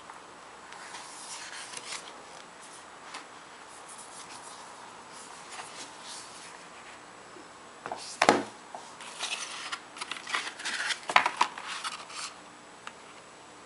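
Hands handling a Blu-ray digibook and its packaging: soft rustling and rubbing, a sharper knock about eight seconds in, then a quick run of clicks and taps.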